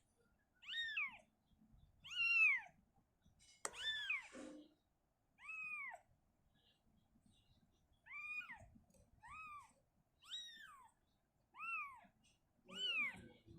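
A young kitten mewing over and over: about nine short, high-pitched, rising-and-falling mews, roughly one a second, with one sharp click near the middle.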